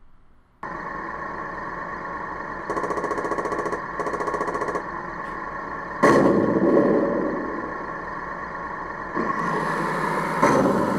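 Sound unit of a Tamiya 1/16 M551 Sheridan RC tank playing its engine running sound. Two short bursts of machine-gun fire come about three and four seconds in, and a loud main-gun shot comes about six seconds in.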